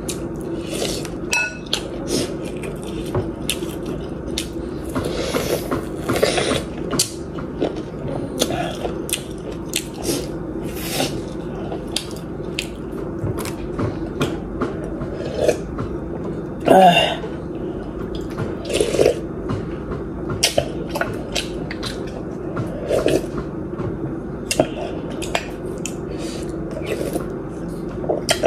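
Close-up eating sounds: a wooden spoon clicking and scraping against a glass bowl, with slurps of soup, over a steady low hum.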